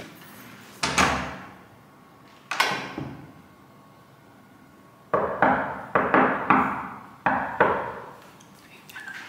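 Knuckles knocking on an interior door: a single knock about a second in and another about two and a half seconds in, then a quick run of about ten knocks from about five to eight seconds, each with a short echo.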